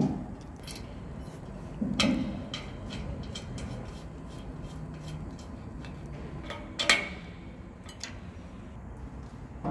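Metal parts and hand tools clinking and knocking in a workshop: scattered light ticks, with two louder ringing clanks about two seconds in and again near seven seconds.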